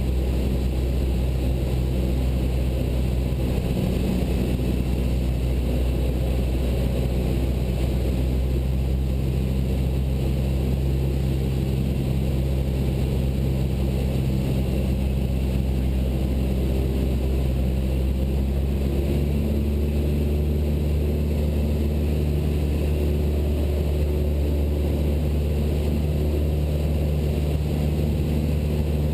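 Cessna 172 Skyhawk's four-cylinder Lycoming engine and propeller droning steadily in the cabin in flight; about two-thirds of the way through, the engine note shifts slightly.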